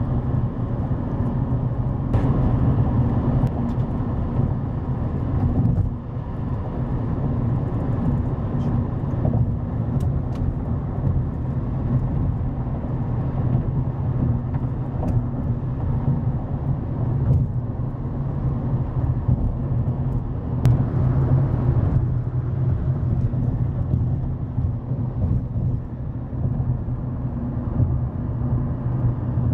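Steady road and engine rumble of a car driving at speed, heard from inside the cabin.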